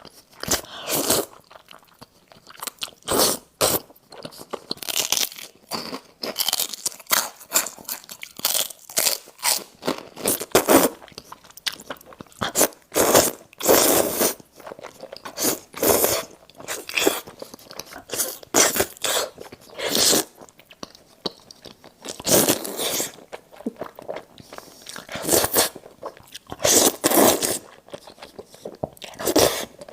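Close-miked eating: a person biting and chewing crunchy food, with irregular crisp crunches in clusters throughout.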